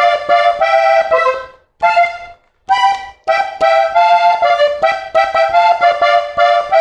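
Three-row diatonic button accordion playing a melody on its treble buttons, note by note. The phrase breaks off twice, briefly, between about one and a half and three seconds in, then runs on without a break.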